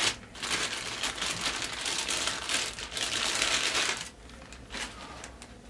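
Thin plastic bag crinkling and rustling as a PS4 controller is pulled out of it. The crinkling stops about four seconds in, leaving a couple of faint clicks.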